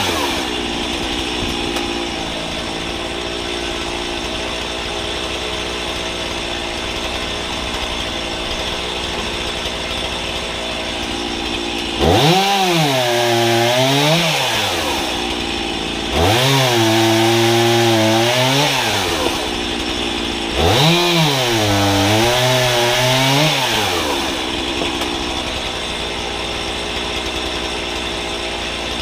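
Two-stroke chainsaw on a homemade pivoting guillotine stand idling, then revved for three cuts through a log in quick succession, a few seconds each, its pitch rising and sagging as the chain bites into the wood. It then drops back to idle.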